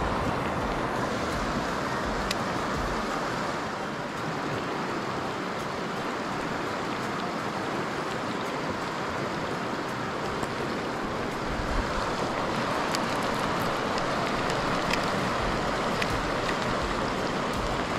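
Steady rush of flowing river water mixed with heavy rain, with a few faint ticks.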